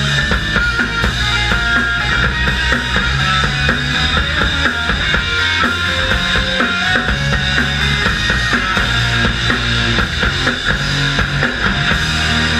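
Rock band playing live and loud: a drum kit with bass drum and snare to the fore, over electric guitars and bass guitar.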